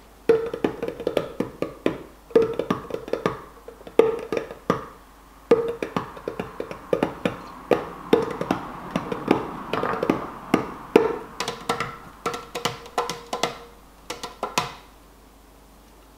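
Background music with a busy, clattering percussive beat over a steady tune. It starts just after the opening and stops about a second and a half before the end.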